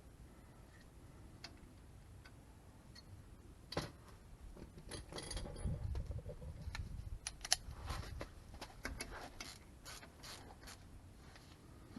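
Hand tools working on a brake drum: a metallic clunk about four seconds in, then a run of ratchet-like clicks and clinks as bolts are worked into the drum's pre-threaded holes to push it off the hub.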